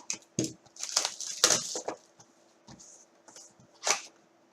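Sharp snaps and crinkling of a trading-card box and its packaging being torn open and handled, in short clusters: one about half a second in, a longer run from about one to two seconds in, and a single snap near the end.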